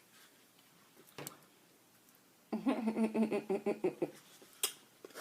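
A woman's short wordless vocal sound, a wavering hum or giggle, about halfway through. Before and after it come a few light clicks of food packaging or a utensil.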